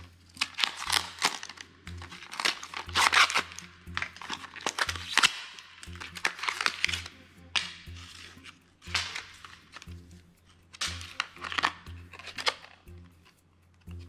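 Plastic packaging crinkling and rustling in handfuls of bursts as a computer part is unwrapped by hand, over quiet background music.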